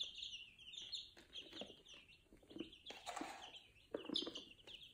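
A brood of five- to six-day-old chicks peeping constantly, many short falling cheeps. About three seconds in comes a brief rustling hiss as chick feed is sprinkled onto the pen floor.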